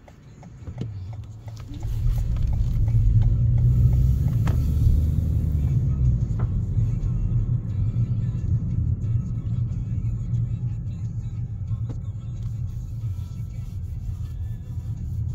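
Car cabin noise: a low engine and tyre rumble that grows louder about two seconds in as the car pulls away from a standstill, then stays steady at road speed. A few faint ticks in the first second.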